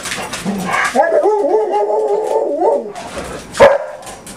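English springer spaniel whining in a long, wavering, howl-like cry for about two seconds, then giving one short, loud bark about three and a half seconds in.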